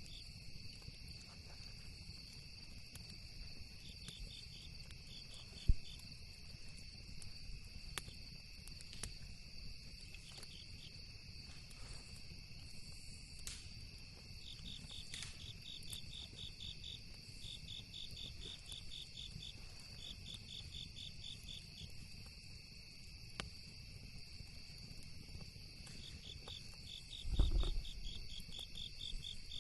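Crickets chirping in repeated pulsed trains over a steady high insect trill, with a campfire crackling in sparse sharp pops, one much louder pop about six seconds in. A low rumble runs underneath, and a loud low thump comes near the end.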